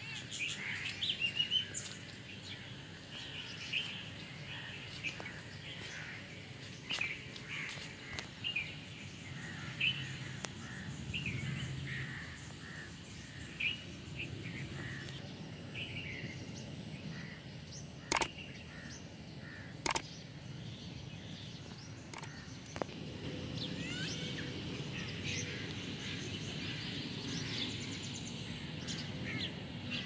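Many birds chirping and calling over a low steady background hum. Two sharp clicks about two seconds apart, just past the middle, are the loudest sounds.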